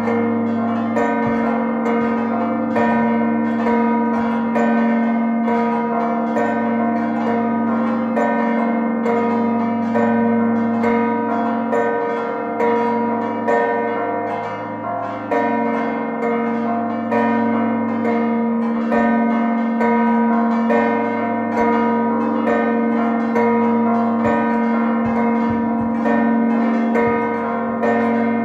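Peal of six church bells at the Marija Annunzjata church in Birgu, rung continuously in a steady, overlapping rhythm of strokes: the festive 'mota' that marks the close of the feast of St Dominic.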